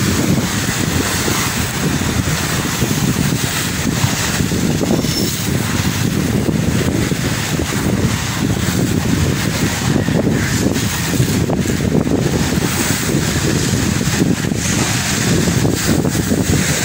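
Strong wind buffeting the microphone over rough sea waves breaking and churning against a concrete seawall, a steady loud rush whipped up by southwest monsoon winds.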